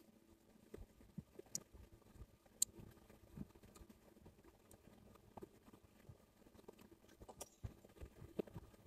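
Near silence with faint sounds of someone eating: soft chewing and a few scattered light clicks.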